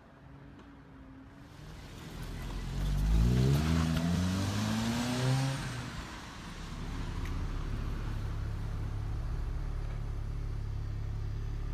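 Van engine revving up, its pitch rising for a few seconds, then dropping away and settling into a steady low idle.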